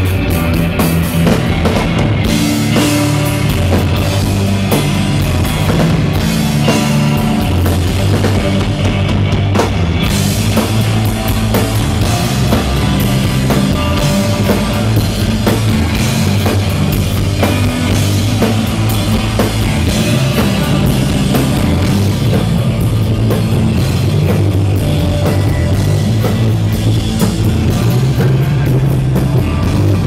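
Live rock band playing loud, with a prominent electric bass line moving from note to note, electric guitar and a drum kit with cymbal hits.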